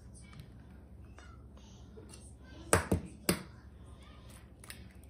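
An egg tapped sharply three times in quick succession against the rim of a glass mixing bowl to crack it, followed by a lighter click as the shell is pulled apart.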